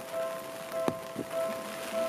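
Japanese level-crossing warning bell ringing in a steady repeated ding, about two strikes a second. Heavy rain patters underneath, with scattered sharp drips and clicks, one louder about a second in.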